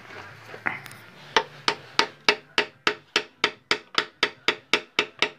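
Small hammer tapping on metal in a quick, even rhythm of about three to four blows a second. The taps start a little over a second in, after one single knock.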